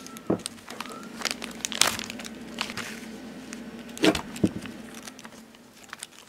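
Irregular plastic clicks and crinkling handling noise as a plastic antenna tube is fitted over an RC car receiver's antenna wire, with louder knocks about two and four seconds in. A faint steady hum runs underneath.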